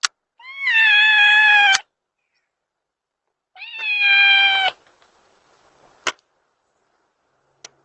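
Domestic cat meowing twice, two long drawn-out meows a couple of seconds apart, each rising at the start and then holding steady. It is calling to be let in. A few sharp clicks come between and after the meows.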